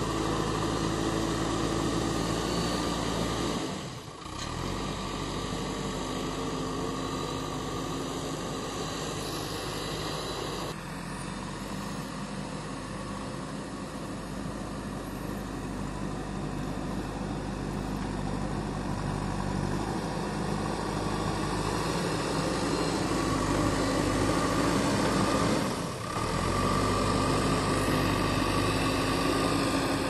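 JCB 3DX backhoe loader's diesel engine running steadily as the machine works over a soil pile. The sound briefly drops away twice, about four seconds in and again near the end.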